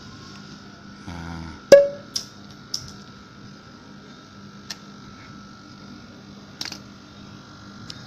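Hex key clicking and clanking on the brass service valve of a split air conditioner's outdoor unit as the valve is opened again to let the R22 refrigerant back through. There is a short rasp, then one sharp metallic clank with a brief ring about two seconds in, and a few lighter clicks after, over a steady hum.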